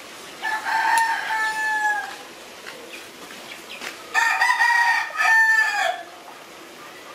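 A rooster crowing twice, each crow lasting under two seconds; the second is louder and drops in pitch at its end.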